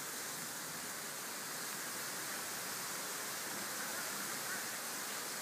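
Steady hiss of wet snow and rain falling.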